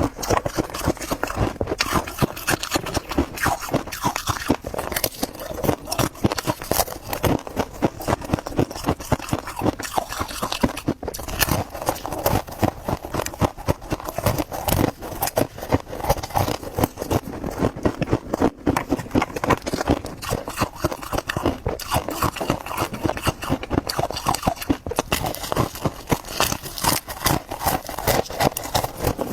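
Freezer frost being chewed, a dense run of irregular sharp crunches, several a second, without a break.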